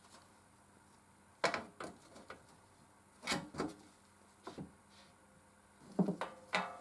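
Irregular knocks and clicks from handling a Consul 221 typewriter and its parts during disassembly, in small clusters; the last knock rings briefly like metal.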